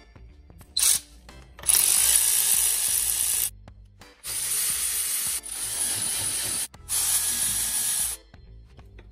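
Cordless electric ratchet motor running in several bursts of one to two seconds, with short pauses between them, spinning out the bolts that hold the rear output housing on a cast-iron Ford T18 four-speed transmission.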